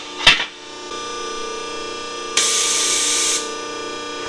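Sheet steel scraping briefly twice as it is handled at a Scotchman metal brake, over a steady machine hum. About two and a half seconds in, a hiss rises and lasts about a second.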